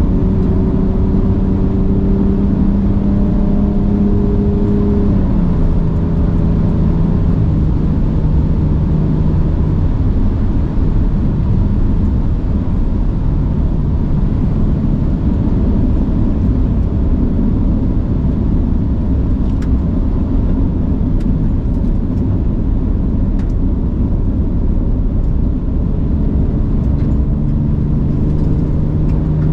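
Ford Ranger Raptor's twin-turbo V6 running steadily on the move, its note stepping down in pitch about five seconds in, over a dense rushing of tyres and road. Through the middle the engine note sinks into the road noise, and it comes back near the end.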